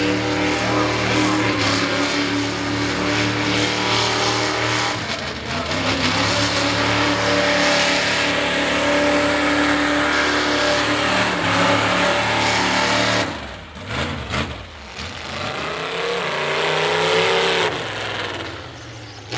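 Mega mud truck engines running loud at full throttle on open headers for most of the stretch. The sound drops away suddenly about two-thirds through, then an engine revs up, rising in pitch, and falls off near the end.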